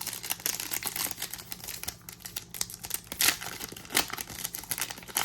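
Trading cards and their pack wrapper being handled: a steady run of light clicks and rustles, with two sharper clicks a little past the middle.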